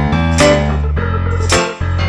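Background music: keyboard notes over a steady bass line, with a sharp beat about every second.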